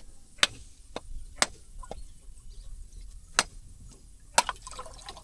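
A series of sharp, short knocks or clicks, roughly one a second with a gap in the middle, the loudest near the end.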